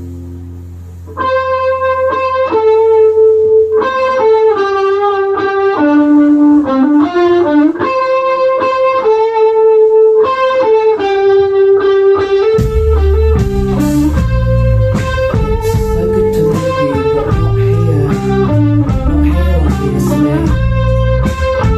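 Live rock band: a clean electric guitar plays a melodic line of single notes alone. About twelve seconds in, the full band, with bass guitar and drums, comes in under it and the music gets fuller and heavier.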